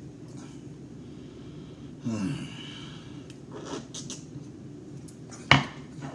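A man sighs with a short, falling pitch about two seconds in, over a steady low room hum, then sips beer from a glass. A sharp click sounds near the end.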